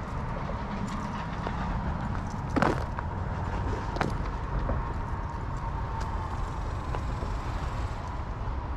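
Footsteps on a dirt hiking trail under steady rumbling wind noise on the microphone, with two sharper scuffs about two and a half and four seconds in and a faint steady high tone.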